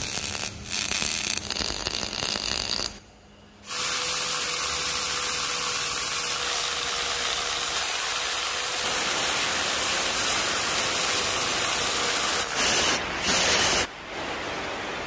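A MIG welder crackling in short runs as steel washers are welded on. Then an angle grinder grinds the steel welds steadily for several seconds. Near the end an aerosol spray-paint can hisses in two short bursts.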